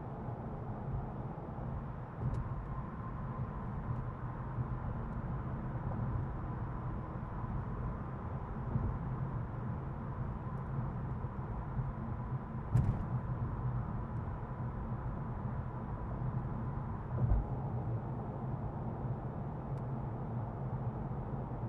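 Road and engine noise inside a car driving on the freeway: a steady low rumble, with a faint steady high whine through much of it and a few light knocks.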